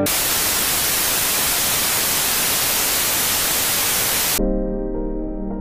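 TV static sound effect: a loud, even white-noise hiss that cuts off suddenly about four and a half seconds in, giving way to soft ambient music with held tones.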